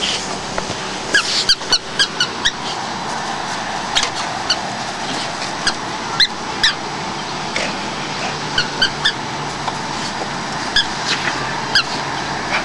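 A dog's squeaky toy squeaking in short, high-pitched squeaks, irregularly spaced and often two or three in quick succession as it is bitten, over a steady background noise.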